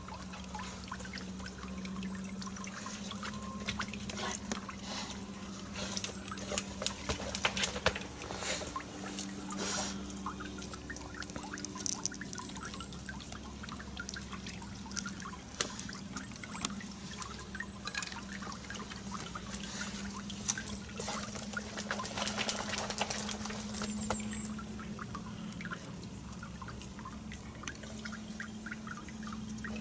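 Shallow swamp water splashing, dripping and trickling around hunters standing in flooded timber, with scattered light clicks and knocks. A steady low hum runs underneath.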